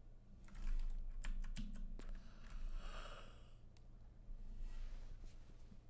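Computer keyboard keys and mouse clicks tapping in scattered runs, with a short soft hiss around the middle.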